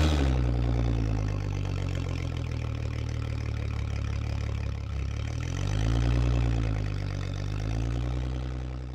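Engine running steadily at a low pitch, its pitch swelling up and back down twice in the second half.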